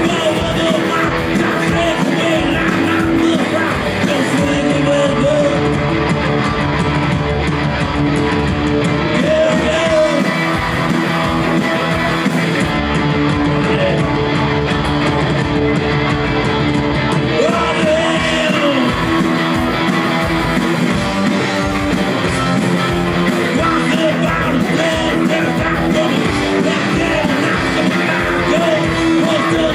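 Punk rock band playing live and loud: electric guitar, bass and a steady drumbeat, with singing over the top.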